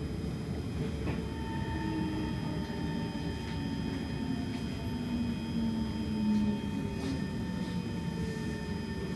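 Kawasaki C151 metro train heard from inside the carriage as it slows into a station platform: a steady rumble of wheels on track under a motor whine that falls slowly in pitch as the train brakes, with a steady high tone joining about a second in.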